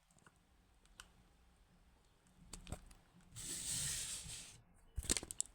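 Quiet handling of a dismantled lever lock's parts: a few light clicks, a rustling scrape lasting about a second midway, and a quick run of clicks near the end.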